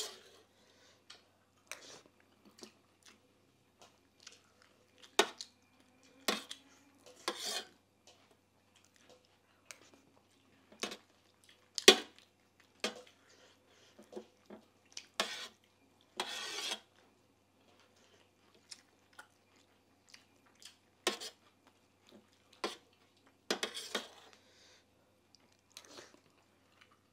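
A metal spoon clinking and scraping against a brass plate and bowl while eating rice and dal, in irregular sharp clicks with a couple of longer scrapes, and chewing between spoonfuls.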